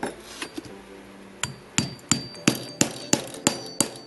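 Metal rammer packing potassium nitrate and sugar rocket propellant down into a PVC tube: a run of sharp, ringing metallic knocks about three a second, starting about a second and a half in after a couple of faint taps.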